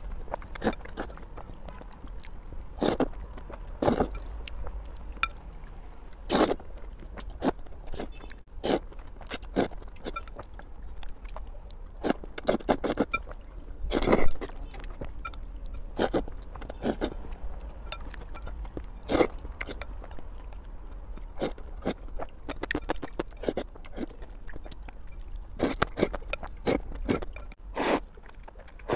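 Close-up slurping and chewing of noodles: irregular short wet slurps and chews, with a longer, louder slurp about halfway through.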